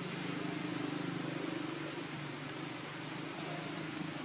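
Steady outdoor background: a low droning hum under an even hiss, with a few faint high chirps.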